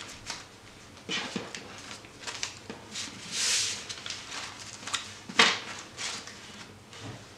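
Paper banknotes handled on a tabletop: bills rustling and sliding as stacks are gathered, with scattered light taps and one sharp knock about five and a half seconds in, the loudest sound, as the bundle is squared up.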